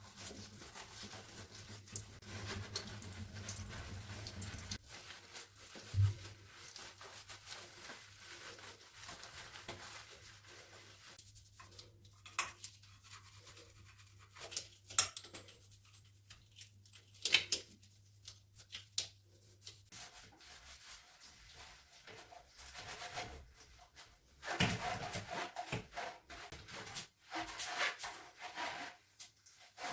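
Hands-on bathroom cleaning: scrubbing and rubbing with a brush or cloth, broken by light clicks and knocks of items being handled. It gets busier and louder near the end. A faint low hum stops about two-thirds of the way through.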